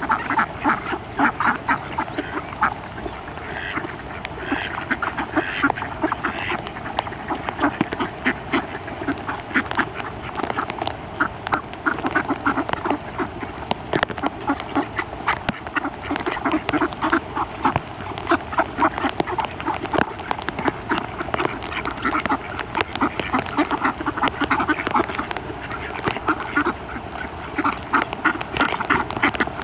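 Flock of mallards quacking, many short calls overlapping without a break.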